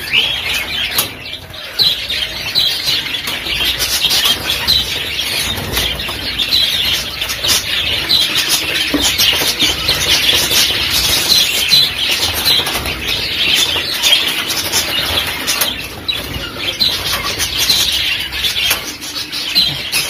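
A flock of budgerigars chattering with many short, quick chirps, their wings flapping as they flutter around inside a wire cage, with scattered clicks and knocks throughout.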